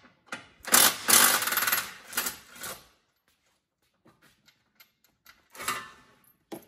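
Cordless impact driver hammering on a bolt of a Range Rover Sport's rear reinforcing bar, undoing it: a burst of about two seconds beginning about a second in, then a shorter burst near the end.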